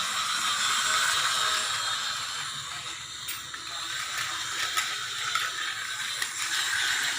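Battery-powered Tomy toy train engine whirring along a small curved plastic track. Its motor is a replacement that makes it run fast. The sound grows louder and softer as it goes round, with a few sharp clicks in the middle.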